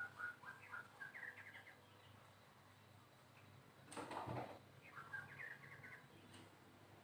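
White-rumped shama singing faintly: quick runs of short repeated whistled notes, a pause of about two seconds, then a short harsh note followed by another rapid run of notes.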